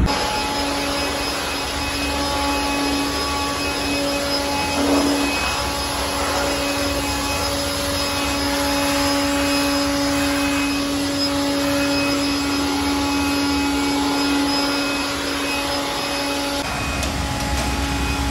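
An electric blower-type motor running steadily in a bike detailing shop: a constant whine over rushing air. It stops about sixteen and a half seconds in, giving way to a lower rumble.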